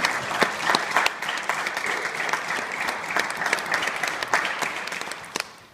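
Audience applauding, the clapping thinning and dying away near the end.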